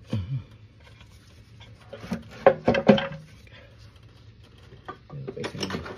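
Clattering knocks of hand tools and engine parts handled under the hood of a car during intake-manifold removal, loudest in a quick cluster about two to three seconds in. Short pitched sounds, like a voice or an animal, come at the very start and near the end.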